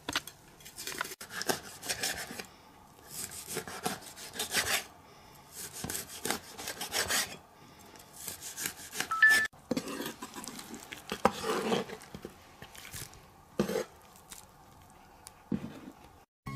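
Cleaver slicing and sawing through a large carp's flesh and skin on a wooden cutting board: repeated scraping strokes with short pauses between them, and a few sharp knocks of the blade on the board.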